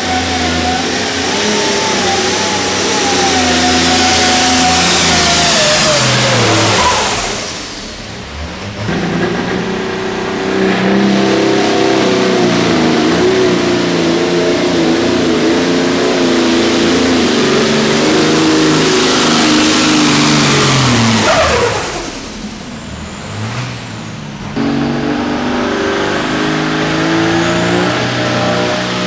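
Diesel pulling tractors at full throttle hauling the weight sled, engine pitch wavering under load and then dropping as each pass ends. The engine noise falls away briefly twice, about a third of the way in and again about three-quarters of the way in, before the next pass starts.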